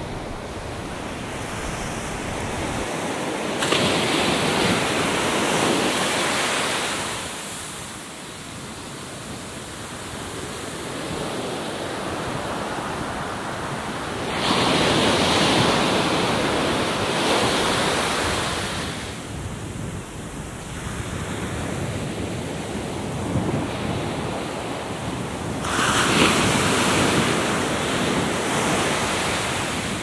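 Atlantic Ocean waves breaking and rushing in: three big swells crash, about four seconds in, about halfway, and near the end, with a steadier wash of surf between them.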